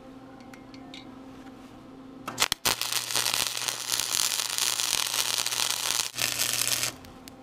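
Electric arc welding on a steel trailer frame: the arc strikes with a short sputter about two and a half seconds in, crackles steadily for about four seconds, and cuts off suddenly near the end. A faint low hum comes before it.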